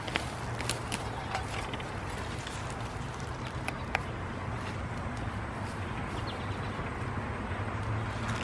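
Fennel and weeds being pulled up by hand: faint rustling of stems and leaves with a few sharp snaps and clicks, over a steady low background hum.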